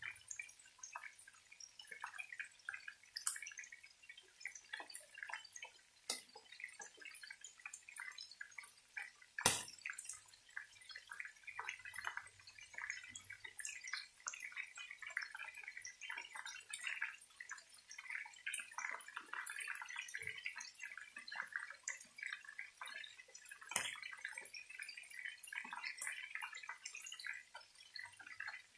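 Chicken pieces frying in oil in a pan: a steady sizzle full of irregular crackles and small pops, with one sharper pop about ten seconds in.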